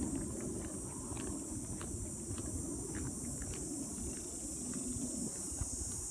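Steady high-pitched insect chorus buzzing, with light footsteps crunching on a dirt trail at walking pace and a low rumble on the microphone.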